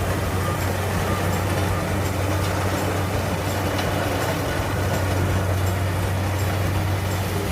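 Corn harvester (reaper) engine running steadily with a constant low hum.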